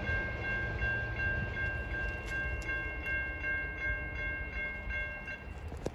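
Railroad crossing warning bell ringing with rapid, evenly repeated high dings over a low rumble. It stops a little over five seconds in as the gate arms lift, marking the end of the warning after the train has cleared.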